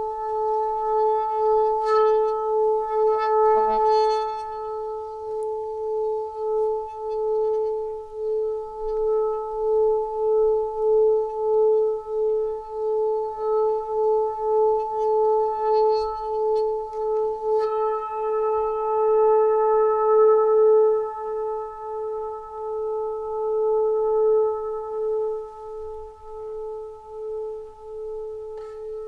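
Sustained ringing drone at one steady pitch with higher overtones, its level pulsing about twice a second like a singing bowl. Light struck accents come about two and four seconds in, and a stronger strike about seventeen seconds in brightens the overtones for a few seconds.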